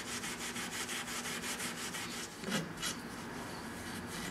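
Fine 0000 steel wool, wet with a mild oxalic acid solution, scrubbing a wooden slat on an antique canvas steamer trunk: a rapid series of short scratching strokes, with two stronger strokes about two-thirds of the way through.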